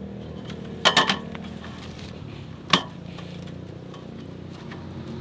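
Folding camping table being set up: its metal frame and slatted top clink and click, a quick cluster of clicks about a second in and a single click near three seconds.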